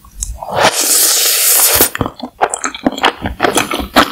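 Instant noodles slurped into the mouth in one long slurp of about a second and a half, followed by wet chewing with many quick smacks and clicks.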